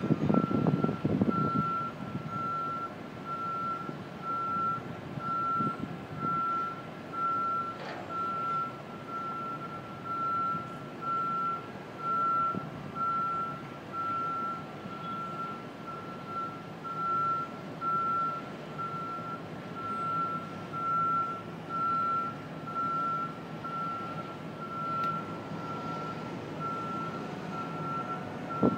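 Backup alarm on construction equipment beeping steadily, a single tone repeating about once a second, over distant city noise. A low rumble is loudest in the first second or so.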